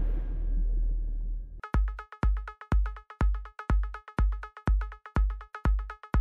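Electronic backing music: a low rumble fades out, and about one and a half seconds in a heavy kick drum beat starts, about two beats a second, under repeated synth chords.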